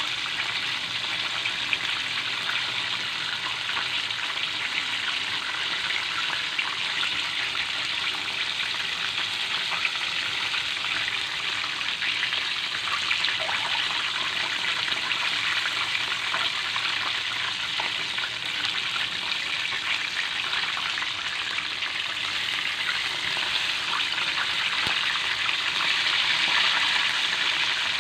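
Chicken pieces deep-frying in hot oil in a metal pan: a steady sizzle with fine crackling.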